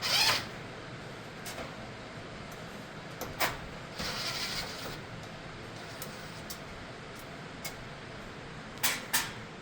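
Screws being taken out of a vending machine's metal tray track, heard as scattered clicks and a brief scraping about four seconds in.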